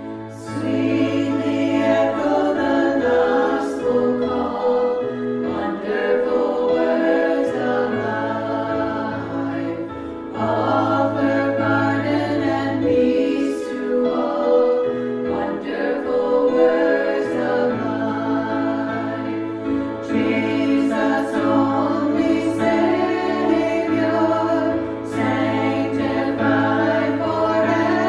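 Choral worship music: a choir singing a hymn over a steady bass accompaniment, in phrases of a few seconds each.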